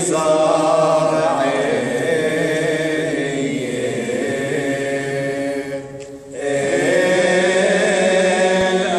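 Men's voices chanting a church hymn together, read from prayer books, with a short pause for breath about six seconds in before the chant resumes.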